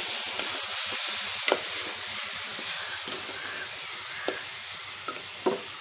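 Marinated chicken pieces sizzling in hot oil and onion masala in a metal pan, stirred with a spoon that clicks against the pan a few times. The sizzle slowly fades.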